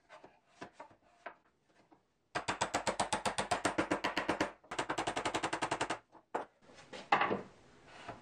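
Wooden mallet knocking a steel shaft through tight-fitting holes in a plywood jig. There are a few soft taps first, then two rapid runs of sharp knocks, about ten a second, each lasting a second or two with a short break between. A few last, separate knocks follow.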